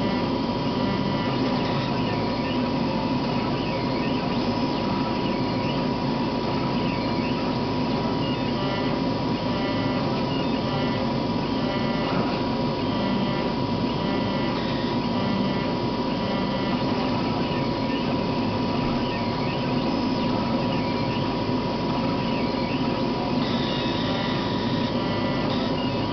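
CO2 laser cutter running through a cut: a steady machine hum with a constant high whine and faint chirps repeating about once a second, the strange noise that shows up during cutting.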